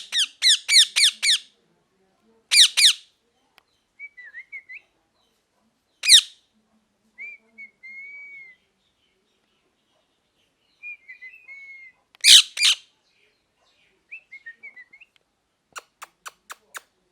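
Ringneck parrot calling: loud, shrill calls in quick runs of several notes, several times, with softer warbling chirps in between. Near the end comes a quick run of five short, sharp notes.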